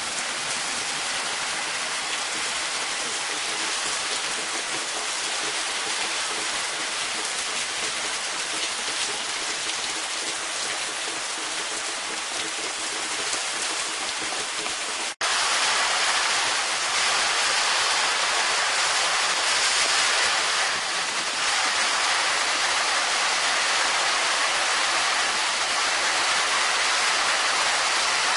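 Heavy, wind-driven rain pouring down in a severe storm, a steady dense hiss. It drops out for an instant about halfway through and comes back louder.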